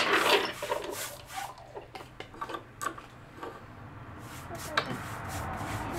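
A brush stroking wood finish onto a bare wooden tabletop: a run of short, scratchy brush strokes, loudest at the start. A low steady hum comes up in the last two seconds.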